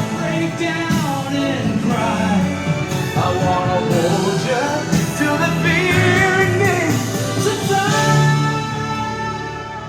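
Background song with a singing voice over a band accompaniment.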